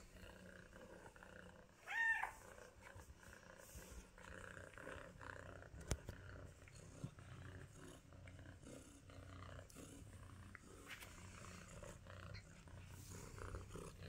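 Domestic cat purring steadily, with one short meow about two seconds in.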